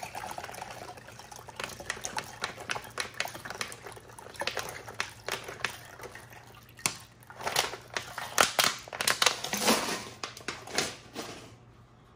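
Water being poured into a blender jar, splashing, with irregular clicks and knocks from handling the containers that get busier and louder toward the end.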